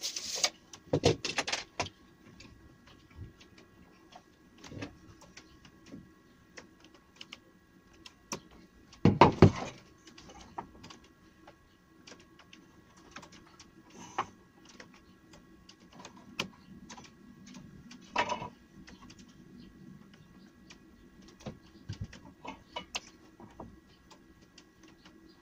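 Scattered clicks, taps and knocks of hand tools (tape measure, steel square and pencil) being handled and set down on beech boards during marking out. Louder clatters come about a second in and about nine seconds in, over a faint steady hum.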